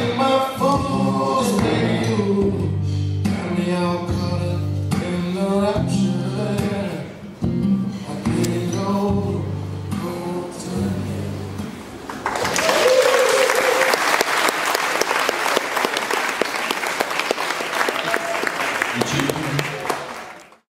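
A blues song with singing plays for about twelve seconds and then ends. The audience breaks into loud applause until the sound cuts off at the end.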